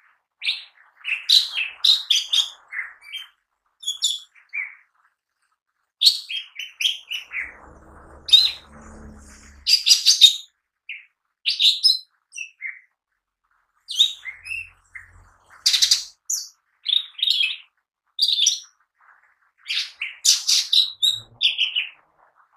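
Male lesser green leafbird (cucak ijo mini) singing energetically: a rapid, varied run of sharp chirps and whistled notes, delivered in phrases broken by short pauses.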